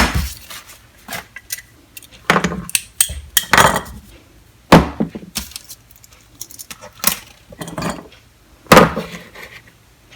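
Metal hand tools being handled and set down, clinking and clattering against each other and a hard surface in several separate clatters with handling noise between them.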